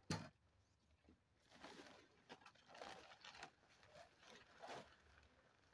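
Tent fabric rustling in short bursts as the folded legs of an instant cabin tent are unfolded, with one sharp knock right at the start.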